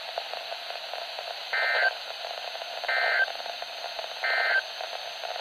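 Three short bursts of warbling SAME digital data tones, about a second apart, from a weather radio's speaker over steady receiver hiss. This is the Emergency Alert System end-of-message code (NNNN) that closes the NOAA Weather Radio required weekly test.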